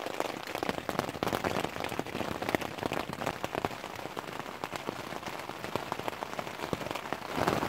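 Steady rain pattering on a tent, heard from inside: a dense, even run of small drop hits.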